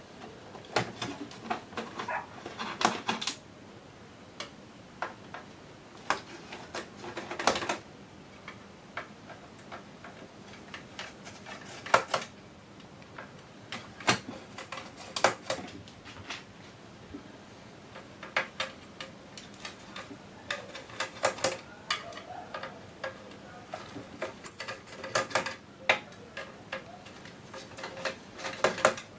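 Irregular metallic clicks, taps and clinks of a long hand screwdriver working screws out of the modules in a metal avionics rack, some coming in quick clusters and a few ringing briefly.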